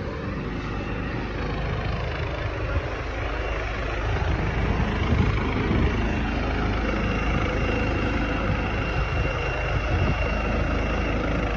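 Medical helicopter running on the ground, its turbine and rotor making a steady loud noise that grows a little louder about four seconds in, with a faint high whine joining about halfway through.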